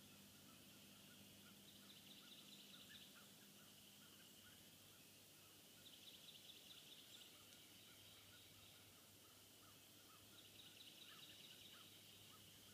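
Near silence in winter woods: a faint, fast songbird trill comes three times, about every four seconds.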